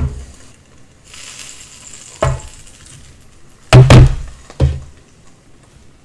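Kitchenware knocking on a stainless-steel counter as a glass pan lid is lifted off a frying pan and set aside and a plate is put down. There is a sharp clack about two seconds in, a loud double knock near four seconds and another knock just after, with a faint hiss from the pan in between.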